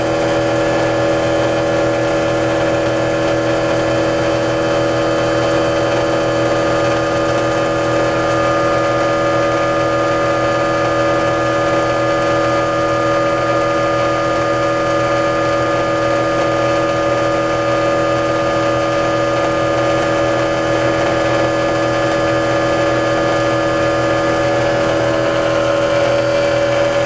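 Electric motor driving a generator, running with a steady whine of several constant tones while a bank of incandescent light bulbs is switched on as load. The pitch holds steady, with no clear slowdown of the motor under the added load.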